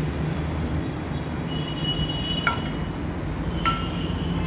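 A nonstick frying pan clinks twice against the gas stove's metal grate, about two and a half seconds in and again about a second later, as it is lifted and tilted to spread the heating oil. A steady low hum runs underneath.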